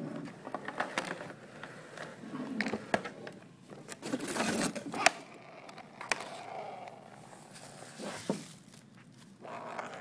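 Handling noise of an electric can opener and its cord: a string of irregular clicks, knocks and scrapes with some plastic crinkling as the plug is pushed into a power strip.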